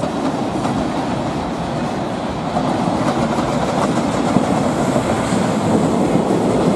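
Freight train, an electric locomotive hauling container wagons, passing close below, its wheels running on the rails; the noise grows slightly louder as the wagons go by.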